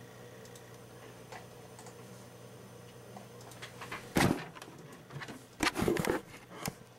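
A steady low hum, then from about four seconds in loud bumps and rustling from hands handling the webcam right at its microphone.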